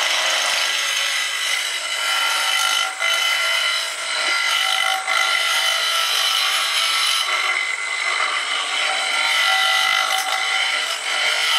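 Wood lathe running while a turning tool cuts a spinning wooden handle blank: a steady mechanical whine with the hiss of shavings coming off.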